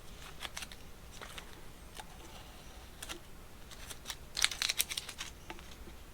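Masking tape being peeled off a painted plastic coolant overflow tank: light crackles and scattered clicks, with a denser run of crackling about four and a half seconds in.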